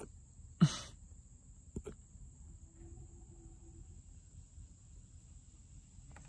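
Puppy hiccuping: one sharp, short hiccup about half a second in, followed by a couple of faint clicks about two seconds in.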